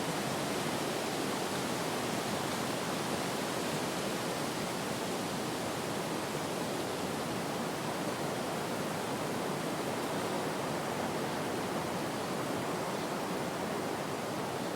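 Steady wind ambience: an even rushing noise with no gusts, breaks or distinct events.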